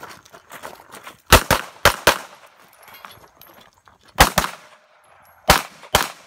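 Pistol shots in quick strings as a shooter works through a practical-shooting stage: four rapid shots about a second in, a pair a little after four seconds in, and another pair near the end.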